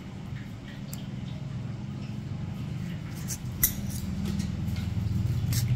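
A few sharp clicks of nail nippers snipping at the edge of a toenail, the loudest a little past halfway, over a steady low hum.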